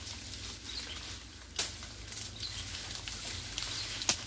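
Outdoor ambience among dense trees: a few faint, short high chirps and two sharp clicks, the louder one near the end, over a low steady rumble.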